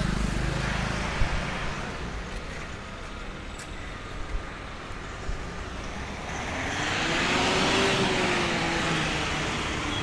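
Road traffic noise: a steady low rumble, with a passing vehicle swelling up and fading away in the second half, the loudest part.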